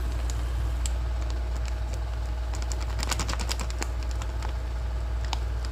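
Plastic wheat-flour bag crinkling and rustling as the flour is poured out into a plastic bowl, with a thick cluster of crackles about three seconds in. A steady low hum runs underneath.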